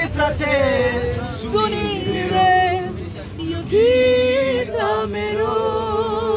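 Several people singing together, men and women, a woman's voice close by, with long held notes, over a steady low rumble inside a bus.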